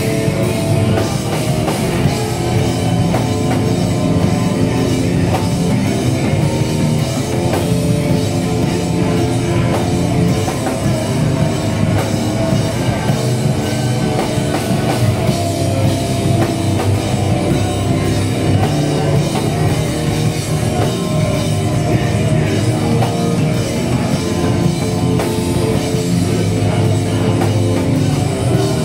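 Extreme metal band playing live: distorted electric guitars over a drum kit, loud and unbroken, heard from the audience floor.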